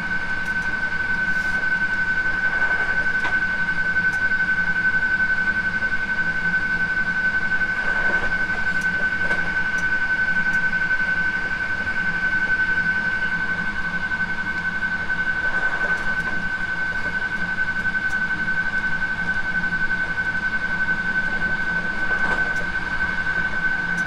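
Hankyu 9300 series electric train running at a steady speed, heard from inside the car: an even rumble with one constant high-pitched whine and a few faint clicks from the track.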